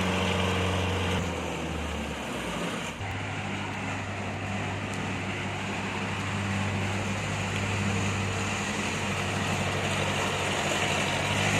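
Kubota DC70 rice combine harvester running steadily, its diesel engine humming under a broad mechanical din; the engine note shifts about three seconds in.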